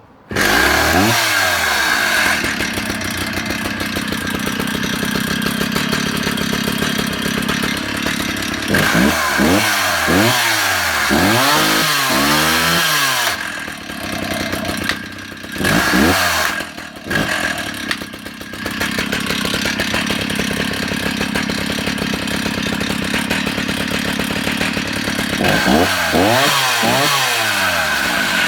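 Stihl 045AV 75cc two-stroke chainsaw engine catching at once and running. It is blipped to full revs several times, each time rising fast and dropping straight back to a steady idle, showing a crisp, healthy throttle response.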